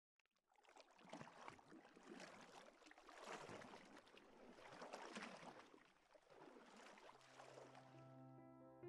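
Faint rushing noise that swells and fades every second or so. Soft keyboard music fades in near the end.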